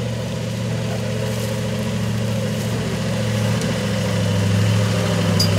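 Modified off-road Jeep's engine running at low revs as it crawls slowly over rough dirt, a steady low note that grows louder as it approaches.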